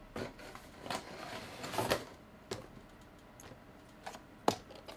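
Small cardboard boxes being handled and set on a tabletop: scattered light knocks and clicks, a brief rustle about two seconds in, and the sharpest knock about four and a half seconds in.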